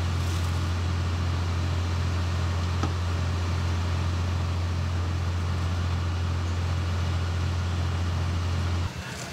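Engine running at a constant speed: a loud, steady low drone with a hiss above it, cutting off abruptly near the end.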